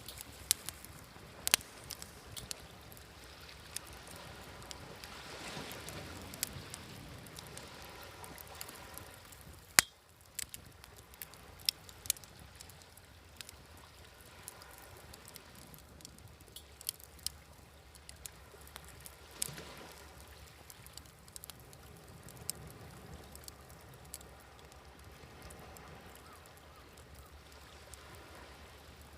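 Wood fire crackling, with sharp pops scattered throughout, the loudest about ten seconds in, over the soft wash of sea waves that swells and fades twice.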